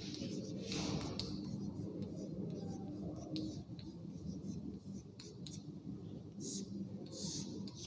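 Chalk writing on a blackboard: short scratchy strokes and light taps of the chalk as capital letters are written out.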